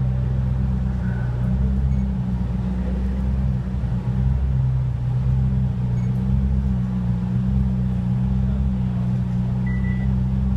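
Koenigsegg One:1's twin-turbo V8 idling steadily, a low, even rumble with no revving.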